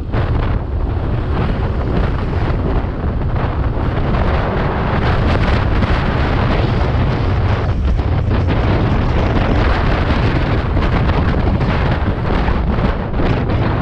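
Wind buffeting the microphone of a scooter rider at about 50 to 65 km/h: a loud, steady low rumble with rapid flutter.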